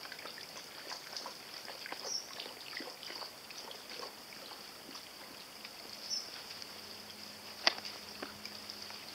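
Steady high-pitched insect chirring, with a couple of short chirps and scattered small ticks and taps. One sharper click about three quarters of the way through is the loudest sound, and a faint low hum comes in near the end.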